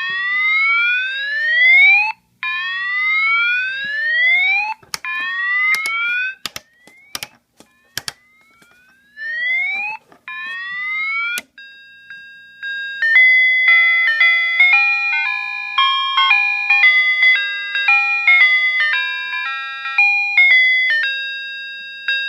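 Wolo electronic horn sounding a run of rising siren whoops, each sweep lasting about two seconds, with sharp switch clicks between some of them. About halfway through it changes to an electronic tune of stepped beeping notes.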